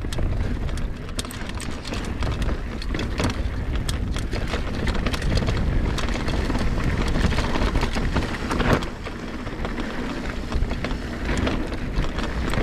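Mountain bike riding down a rough, rocky singletrack: a steady low rumble with frequent clicks and rattles as the bike goes over roots and rocks. A louder clack comes near nine seconds in.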